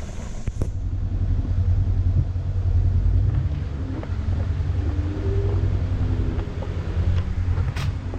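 A Jeep's engine working up a rocky off-road obstacle, a heavy low rumble that swells over the first few seconds. A sharp click about half a second in and another near the end.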